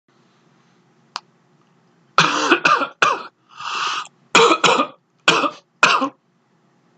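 A person coughing a dry cough early in a cold, with no loose phlegm. From about two seconds in there are about seven short coughs, mostly in quick pairs, with one drawn-in breath in the middle. A single small click comes about a second in.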